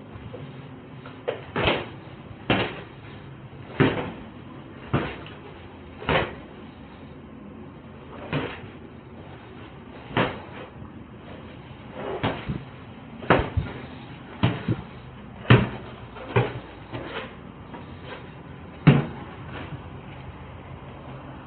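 Footsteps thudding close to the microphone, about one a second and uneven, as someone walks down stairs and into a basement; the loudest thud comes near the end.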